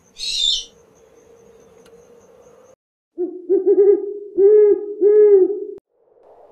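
Eurasian eagle-owl hooting: a quick run of short low hoots, then two longer hoots. Before the hoots, near the start, there is one brief high-pitched call.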